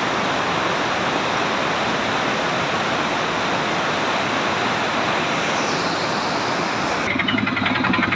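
Muddy floodwater rushing in a torrent, a steady loud roar of water. About seven seconds in, the rush gives way to a fast rhythmic pulsing sound.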